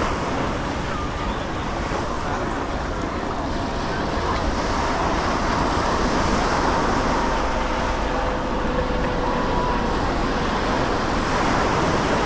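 Steady ocean surf washing on a sandy beach, with wind buffeting the microphone and a faint background of distant traffic.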